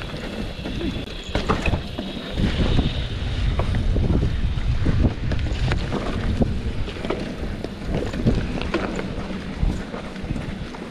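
Wind buffeting the microphone over the rattle of a mountain bike riding a rough trail, with many sharp clicks and knocks from the bike and the ground. It gets louder from about two seconds in and eases near the end.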